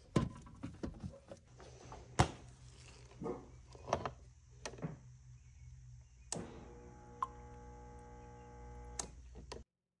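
Plastic clicks and knocks as a water line is pushed into a quick-connect fitting on the refrigerator's water filter head, with one sharp click about two seconds in. After about six seconds comes a steady hum with a single click while the water dispenser paddle is held in, though no water comes out.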